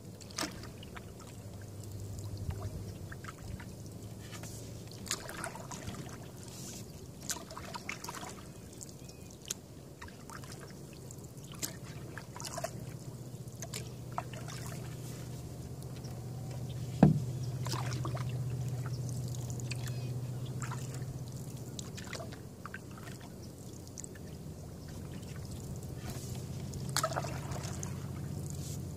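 Canoe paddling on calm water: water dripping and trickling off the paddle blade in small scattered splashes, over a low steady hum. A single sharp knock sounds a little past halfway through.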